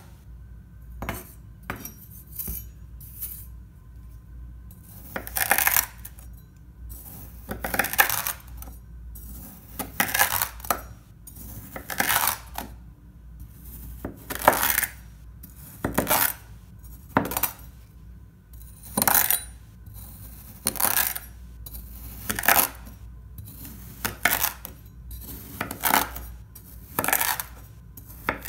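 A Farberware chef's knife slicing through kinetic sand, a crisp crunch with each cut as the blade passes through the packed sand to the tabletop. There are about twenty cuts, spaced irregularly.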